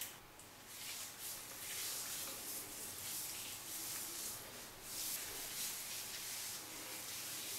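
Hands rubbing shaving cream over a buzz-cut scalp: a faint run of soft, repeated swishes.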